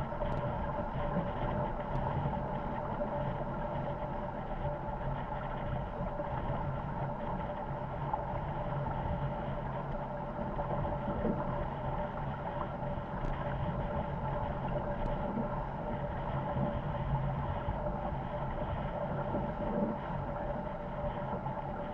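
Corsair F-24 MKII trimaran sailing fast in strong wind: a steady rush of water along the hulls mixed with wind, with a faint steady hum underneath.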